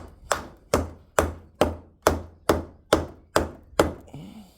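Hammer striking metal in a fast, even series of about ten sharp knocks, roughly two and a half a second, each with a brief ring, stopping shortly before the end: tapping a tractor kingpin part into place.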